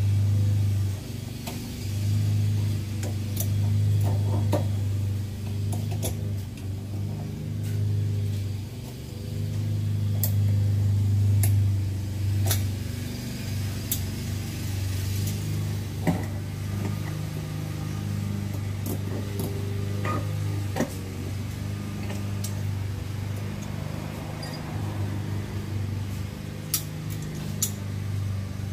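A steady low mechanical hum that swells and fades in loudness, with scattered light clicks and taps.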